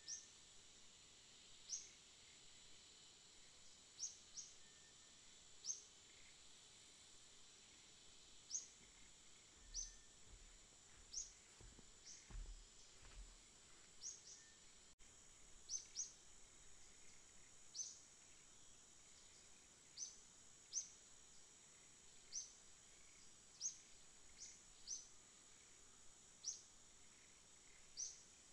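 Faint outdoor ambience with short, high chirps repeating about once a second over a steady high-pitched hiss.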